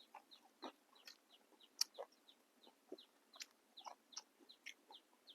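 Faint chewing of crisp fresh vegetables: irregular crunches and mouth clicks, several a second.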